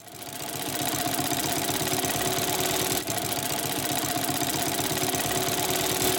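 A motor-driven machine running at a steady speed, with a steady whine over a fast, even clatter, fading in over the first second.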